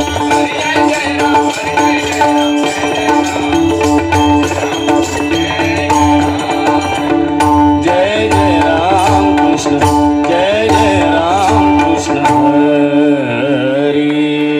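Marathi devotional bhajan music: steady held notes over hand-drum strokes, with a male voice singing gliding, ornamented lines from about eight seconds in.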